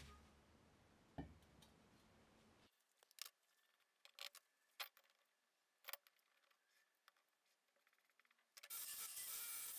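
Hollow square steel tube knocked against a workbench, a clank at the start and another about a second in, each ringing briefly; then a few small handling clicks. Near the end a steady hiss begins.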